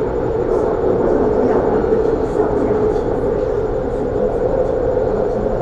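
Elevated metro train running, heard from inside the carriage: steady noise with a constant hum, swelling slightly louder at the start.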